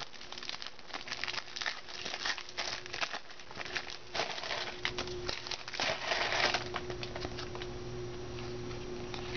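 Plastic card-pack wrapper crinkling and rustling as it is torn open and handled. Dense crackling for about six and a half seconds, then only a few light rustles over a low steady hum.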